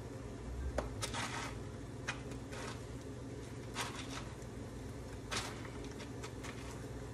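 Crushed pork rind crumbs rustling and crunching in a plastic container as chicken strips are pressed and rolled in them, in several short bursts over a steady low hum.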